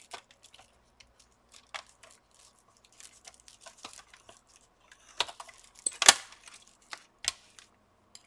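Irregular small clicks, scrapes and rustles as nitrile-gloved hands pull thin cables free from a laptop's plastic chassis. A cluster of louder clicks comes about two-thirds of the way through.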